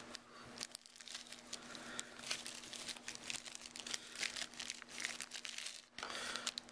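Clear plastic packaging sleeve crinkling and crackling in irregular bursts as a folding knife is handled and pulled out of its box, over a faint steady hum.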